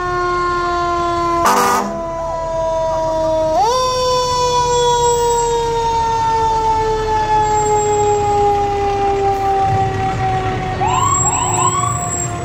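Fire truck siren holding one long tone that slowly falls in pitch. It jumps sharply back up about three and a half seconds in and then sinks slowly again. A brief loud blast comes about a second and a half in, and a few short rising chirps come near the end.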